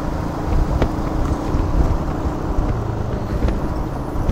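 Royal Enfield Himalayan's single-cylinder engine running steadily on the ride, with a low rumble of road and wind noise. The engine note drops about three seconds in.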